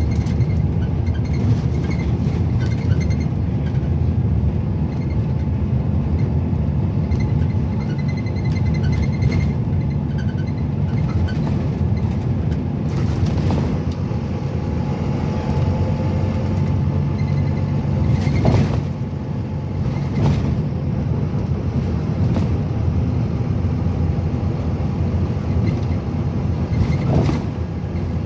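Interior noise of a Volvo B9TL Wright Eclipse Gemini 2 double-decker bus under way: the steady low rumble of its six-cylinder diesel engine mixed with road noise. A few short knocks sound over it, the loudest a little after halfway.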